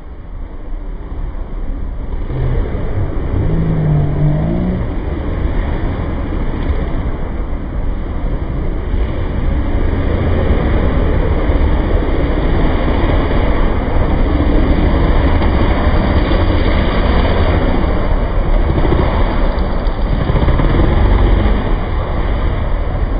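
A pack of youth motocross dirt bikes racing, several engines revving up and down together in a dense, continuous noise. It builds over the first few seconds, and one engine revs up clearly about four seconds in.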